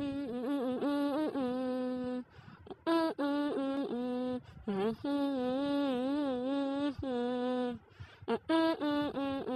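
A single voice singing wordless held notes in a chant-like melody, each note sustained for about a second with a wavering pitch, broken by short pauses.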